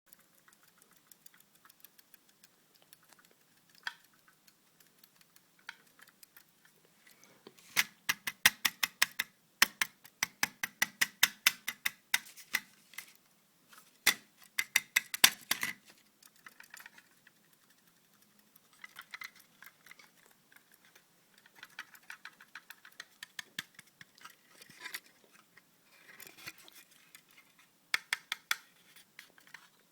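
A solid-state drive making strange rapid clicking and ticking in irregular bursts, the loudest, densest run about a third of the way in, then quieter spells of ticking.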